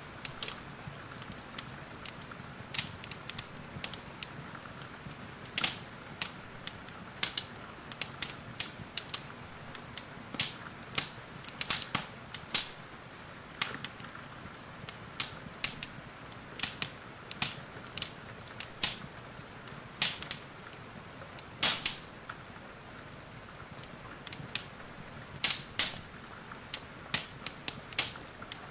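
Wood fire crackling in a fireplace, with irregular sharp pops every second or so, over a steady hiss of rain.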